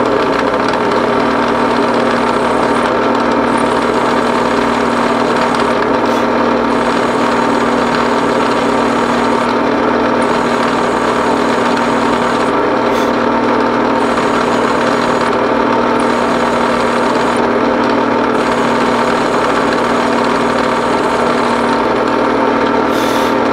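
Drill press running steadily under load, its twist drill cutting a quarter-inch-deep blind hole for a 10-24 tap into a cast iron steam-engine cylinder casting. The motor hum stays even and stops at the very end.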